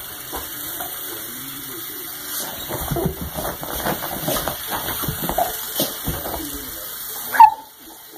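A dog sniffing and scuffling on carpet as it noses and paws at a running toy Christmas train, then a short, loud whine falling in pitch near the end.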